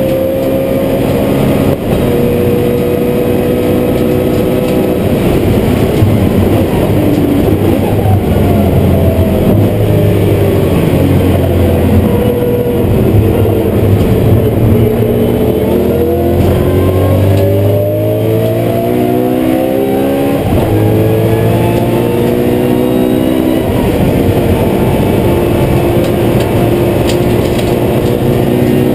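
BMW M3 GT4's V8 race engine running hard, heard from inside the stripped cockpit. Its pitch falls steadily for about ten seconds as the car slows, then climbs through several upshifts before settling at high revs near the end.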